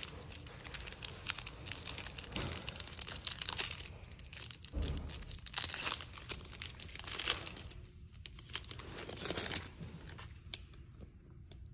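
Foil wrapper of a baseball card pack crinkling and tearing, with the cards rustling as they are prised apart; the crackling dies down over the last couple of seconds.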